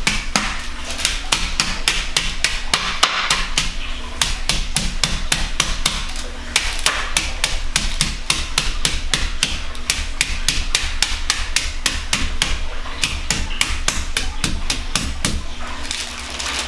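Metal meat mallet, flat side down, pounding chicken tenderloins between sheets of wax paper on a stone countertop: a fast run of dull strikes, about four a second, with a brief break about six seconds in, flattening the meat for frying.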